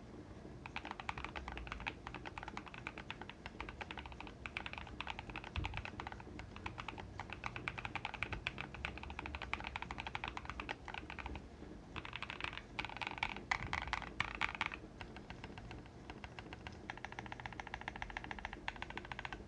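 Fast typing on a Keychron Q2 mechanical keyboard with lubed and filmed Boba U4T tactile switches, foam-dampened and tape-modded: a dense run of keystrokes with a brief pause about eleven and a half seconds in.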